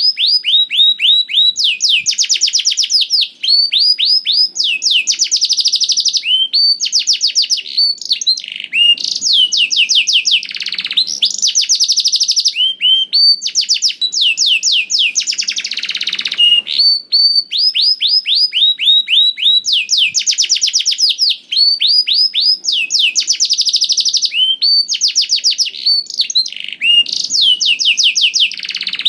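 Canary singing a long, unbroken song of fast trills and runs of quickly repeated high notes, changing phrase every second or two.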